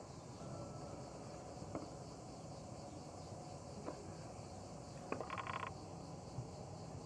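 Crickets chirping steadily, with a few sharp knocks of a knife cutting a lemon on a wooden board and a brief buzzy trill about five seconds in.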